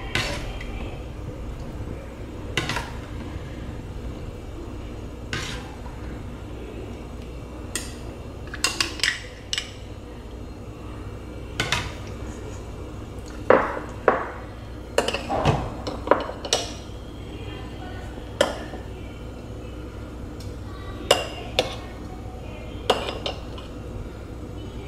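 Metal spoon clinking and scraping against a metal kadhai and a glass serving bowl while thickened milk is spooned from pan to bowl: irregular single clinks, some with a short ring, busiest in the middle of the stretch.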